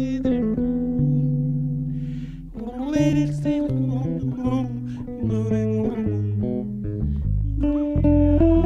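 Two electric basses playing an instrumental duet. One holds low bass notes while the other plays a melody high on the neck, with vibrato on the held notes.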